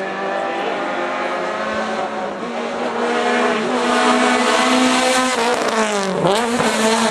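Rally car engine held at high revs, its pitch climbing slowly as it comes on, then dipping sharply and climbing again near the end.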